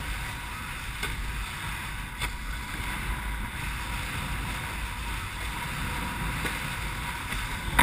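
Wind buffeting a boat-mounted microphone over a steady rush of water along the hull of an International Canoe sailing dinghy under sail.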